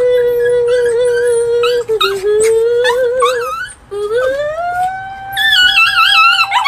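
A small dog and a woman howling together: a long held howl under a higher, wavering dog howl. About five seconds in the howling gets louder and higher.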